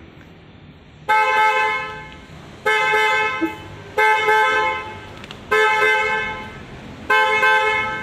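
Newly installed Hella waterproof twin-tone trumpet car horn sounding in five short honks, about one every one and a half seconds, each starting sharply and fading out before the next. It is the new horn being tested after fitting.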